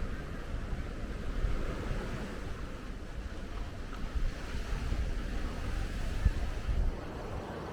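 Ocean surf breaking and washing up the beach, with wind buffeting the microphone in a low rumble that drops off near the end.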